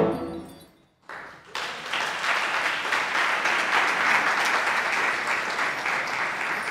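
The last notes of a chamber ensemble of strings, percussion and voices die away into a brief silence, then an audience applauds, starting about a second in and swelling soon after into steady clapping.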